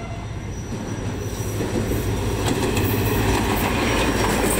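Pakistan Railways HGMU-30R diesel-electric locomotive hauling an express train past at speed, its engine rumble steadily growing louder as it draws close. From about halfway the wheels clatter and click over the rails as the locomotive and first coaches go by.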